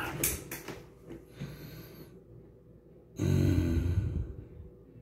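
A person breathing close to the microphone, with one loud exhale about three seconds in and a softer breath before it.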